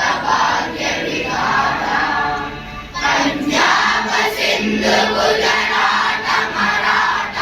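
A large group of schoolchildren's voices singing together in unison.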